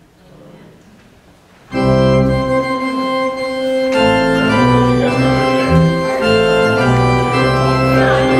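Quiet room tone, then about two seconds in a church organ starts the closing postlude, playing loud sustained chords that change every couple of seconds.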